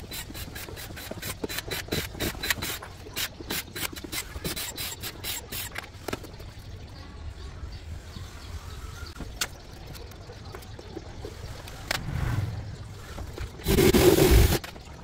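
A run of quick scraping strokes, several a second, for about six seconds, then quieter handling with scattered clicks, and a short loud burst of noise near the end.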